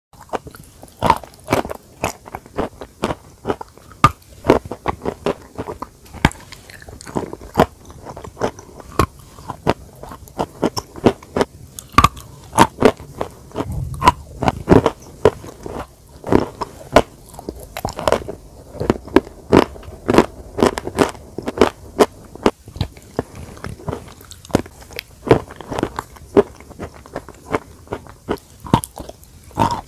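Close-miked biting and crunching of hard white food chunks, with chewing in between: many sharp, irregular crunches, several a second at their busiest, with the loudest bites standing out every second or two.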